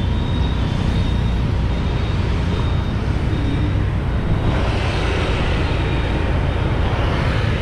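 Steady road noise of riding a motorcycle in city traffic: the bike's engine and wind rush, with scooters around it. The hissing wind noise grows louder about four and a half seconds in.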